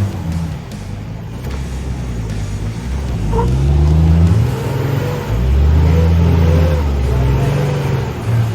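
Four-wheel-drive vehicle's engine running under load and revving, its pitch rising and falling several times.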